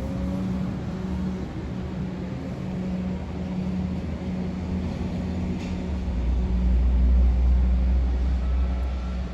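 A train running past, heard as a low hum that keeps breaking off and coming back, with a deeper rumble that grows louder about six seconds in.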